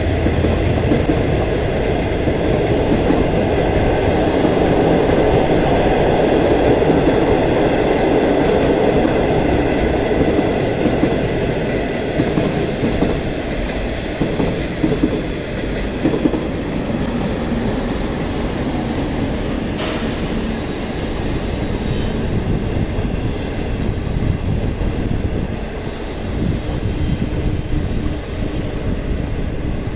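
Green China Railway passenger coaches rolling past on the track: a steady rumble of wheels on rail, loudest in the first ten seconds, with a few sharp clicks around the middle and faint thin high tones above it.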